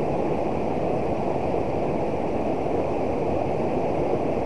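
Water pouring over a small weir into a swift, swollen river: a steady rushing noise with no breaks.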